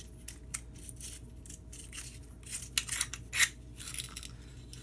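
Clicks, clinks and light scrapes of a porcelain light socket and its metal parts being handled and fitted back together, with a quick cluster of louder clinks about three seconds in.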